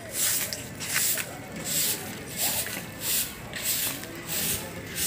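Short-handled grass broom sweeping a dusty earth lane, stroke after stroke in an even rhythm of swishes a little under a second apart.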